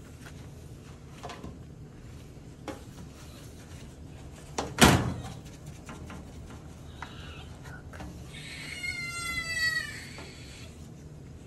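Disinfectant wipe rubbed over a plastic tray, with a single sharp thunk about five seconds in and a drawn-out, slightly falling squeal lasting about a second and a half near the end.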